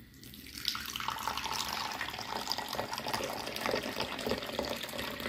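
A stream of tea poured into a porcelain tea bowl (piala), splashing and bubbling as it fills, beginning just under a second in.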